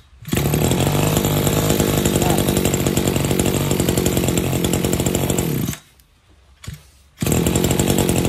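Maruyama BC20 brush cutter's 20cc two-stroke engine catching on a pull-start and running steadily for about five seconds, then cutting out suddenly. About a second and a half later it starts again and runs.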